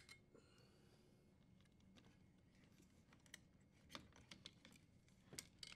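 Near silence broken by a few faint clicks and taps, mostly from about three seconds in to the end: the dishwasher's metal junction box being handled as its retaining tab is pressed and it is slid off the support bar.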